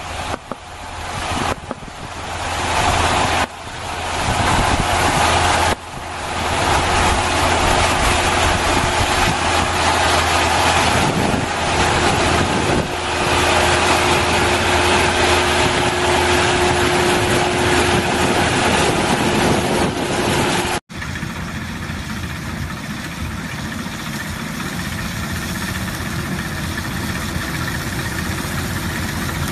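Small combine harvester running while cutting standing crop: a steady engine and machinery drone. About 21 s in the sound changes abruptly to a quieter, more even drone of a similar combine.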